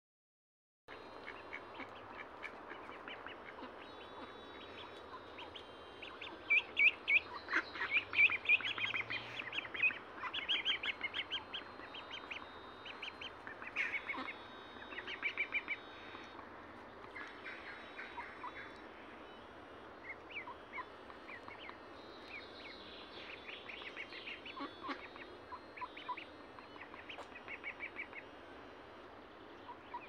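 Birds calling in repeated bursts of quick calls, among them mallard ducks quacking. The busiest, loudest run of calls comes in the first third, with shorter bursts later on.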